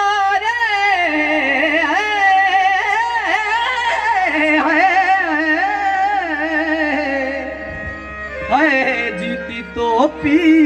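A male folk singer's wordless vocal run, the voice bending up and down quickly through melismatic ornaments, over a steadily held harmonium chord. It eases off briefly a little after the middle, then picks up again.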